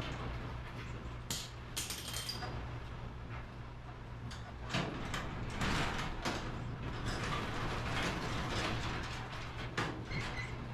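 Garage door rollers being worked out of and into the steel track: scattered metal clicks, knocks and rattles at an irregular pace.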